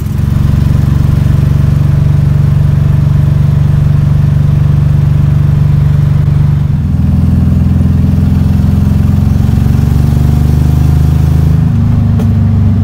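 1962 VW Beetle's air-cooled flat-four engine running on the road with no tailpipes fitted: a loud, low, lawnmower-like exhaust drone heard from inside the car. The engine note changes pitch about seven seconds in and again near the end.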